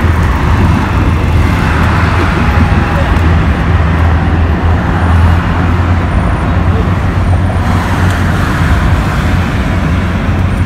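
Steady road traffic running past, with a constant low hum under a dense outdoor noise bed.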